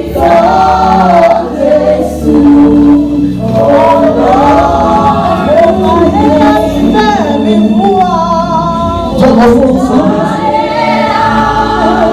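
A choir singing a gospel song, with sung lines held and gliding over steady low notes.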